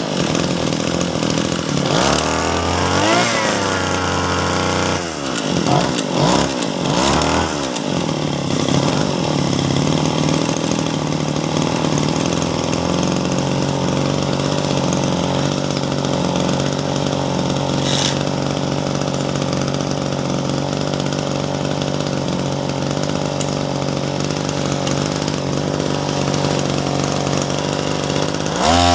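Freshly rebuilt Mitsubishi TB33 two-stroke brush-cutter engine running on its first test run after a new block kit, crankshaft, oil seals and bearings were fitted. It is revved up and down several times in the first eight seconds, then runs steadily at low speed, and revs up sharply right at the end.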